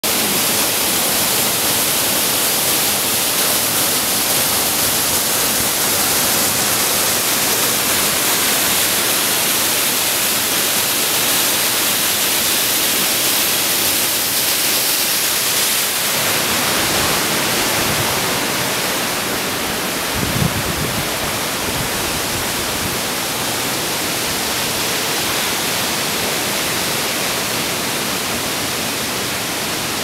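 Steady rushing hiss of water falling and running through the rock gorge below the bridge, a little quieter past the middle, with one brief low thump about twenty seconds in.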